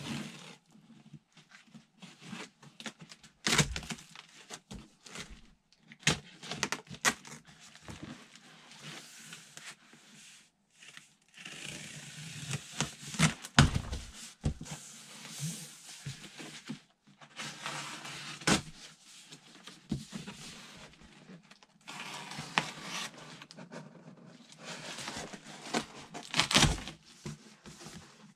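Packing tape being cut and peeled off a large cardboard shipping box and the flaps pulled open: stretches of tearing and scraping broken by cardboard knocks and thumps, the loudest knock about halfway through.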